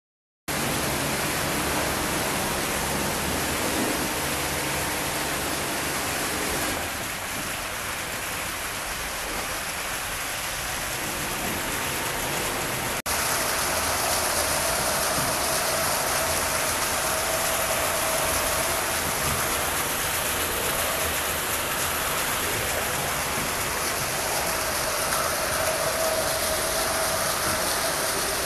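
Water rushing steadily through a mill channel and splashing off wooden water wheels, a continuous noise. It breaks off for an instant about halfway through and carries on.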